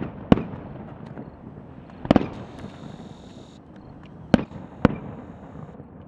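Aerial firework shells bursting: about five sharp bangs spaced irregularly a second or two apart, with two close together near the end. The bang about two seconds in trails off with a longer echo.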